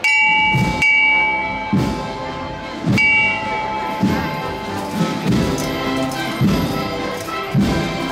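Marching band music in a street procession: drum beats about once a second under held notes, with a bright bell struck sharply at the start, again about a second in and once more about three seconds in.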